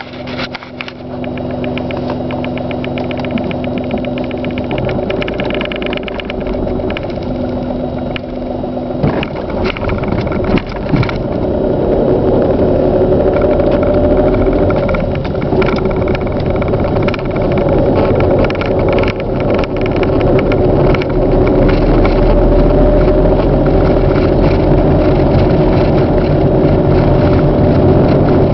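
Car engine running while driving, growing louder about twelve seconds in as it pulls harder, with a steady tone over the engine sound. The owner suspects a failing clutch: a noise that appears when accelerating under way from about 1500 rpm.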